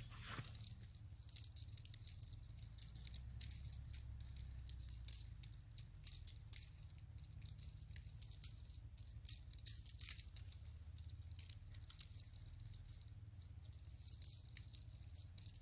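Small ice-fishing reel clicking softly and irregularly as the line is worked up in tiny turns, over a low steady rumble.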